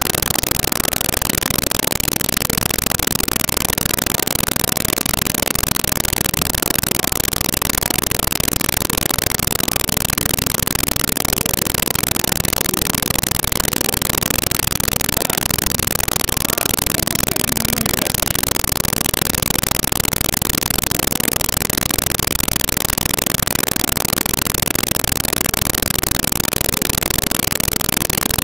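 Steady, loud hiss of static that drowns out everything else, the sign of a badly degraded audio track.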